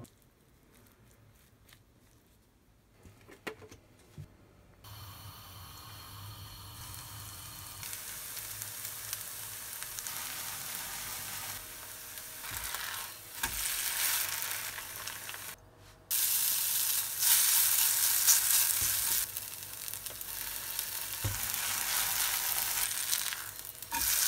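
A few light clicks in the quiet first seconds, then a shredded-carrot pancake sizzling in hot oil in a frying pan, the sizzle steady and getting louder, with a sudden jump in loudness about two-thirds of the way through.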